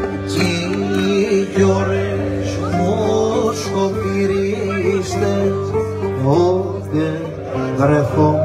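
A man singing a Cretan folk song into a microphone, live, over plucked lute accompaniment with a steady low drone beneath.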